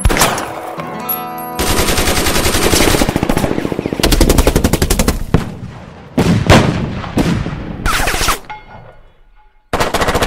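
Gunfire: a long, rapid burst of machine-gun fire, followed by several separate shots, a brief lull and another loud shot near the end. The last ringing chord of the song fades under it at the start.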